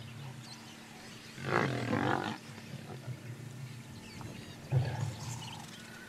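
Lionesses growling over a zebra carcass, a longer growl about a second and a half in and a shorter one near the end: squabbling over the food at the kill.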